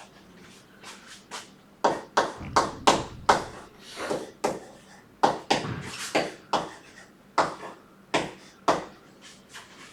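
Writing on a board: a quick, irregular run of sharp taps and clicks from the writing tool striking the surface as an example is written out, starting about two seconds in and stopping near the end.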